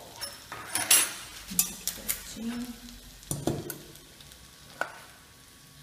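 Wooden spoon stirring cooked black-eyed peas and bacon in a hot frying pan, the food sizzling, with a string of knocks and scrapes over the first three or four seconds. It quietens after that, with a single sharp click near the end.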